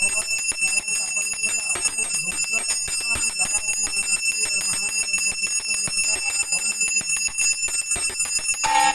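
A puja bell rung rapidly and continuously, its strikes coming in a fast even run with a steady high ring, during the ritual bathing of the deity. Near the end a different steady tone comes in.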